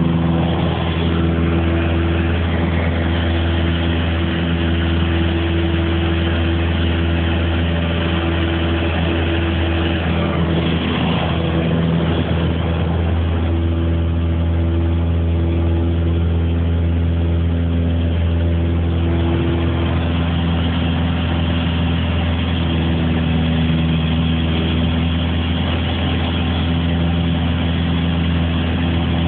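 Light aircraft's engine and propeller running steadily at an even pitch.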